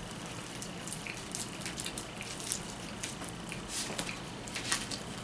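Wet smacks and small clicks of people chewing fried chicken, scattered irregularly, over a faint steady high-pitched hum.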